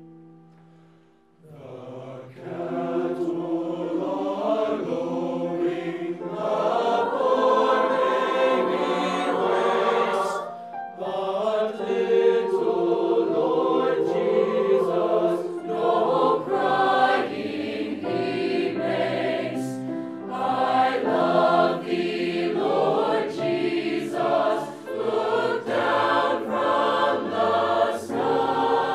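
A mixed high-school choir singing in parts, coming in about a second and a half in after a piano note fades, with short breaks between phrases.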